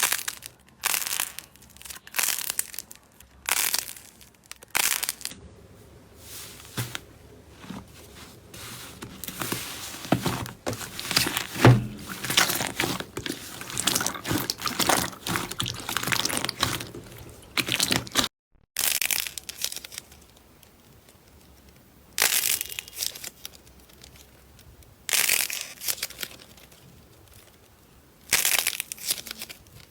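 Slime being pressed and squeezed by hand, giving crinkling, crackling squishes: separate presses about a second apart at first, a denser run of crackling in the middle, a brief break just past halfway, then slower single presses a few seconds apart.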